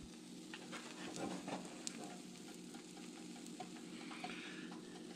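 Pancake frying in a cast-iron skillet: a faint, steady sizzle with scattered tiny pops and crackles.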